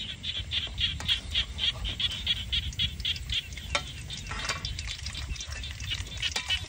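An animal calling in rapid, evenly spaced high chirps, about five a second, weakening midway and picking up again near the end, over a steady low rumble.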